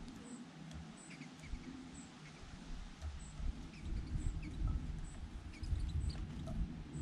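Small birds giving short, high chirps over and over, over a low rumble that grows louder partway through.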